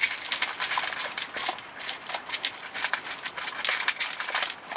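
A borzoi and a rough collie eating from food bowls: rapid, irregular crunching and clicking of chewing dog food.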